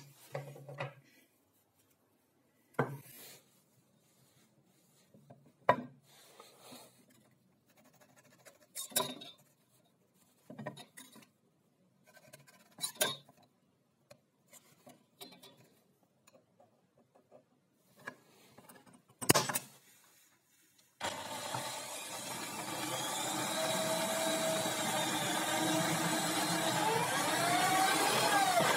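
Scattered knocks and clicks of parts and tools being handled on a wooden workbench. About 21 s in, an electric drill in a homemade drill stand starts running, its stepped bit cutting into metal, with a thin whine that wavers and rises near the end.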